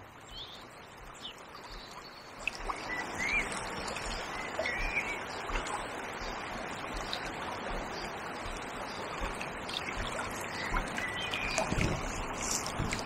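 Fast-flowing river water rushing steadily, growing louder about two and a half seconds in.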